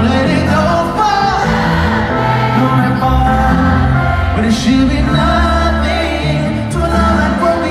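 Loud amplified concert music: a voice singing over a band with heavy, sustained bass.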